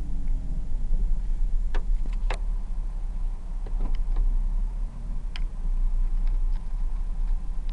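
Vehicle driving on a dirt road, heard from inside the cab: a steady low rumble of engine and tyres, with scattered sharp clicks at irregular intervals.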